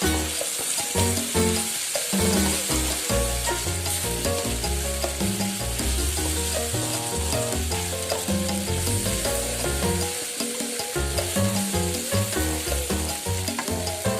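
Tofu sizzling as it is stir-fried in a pan, a steady hiss with stirring, over background music.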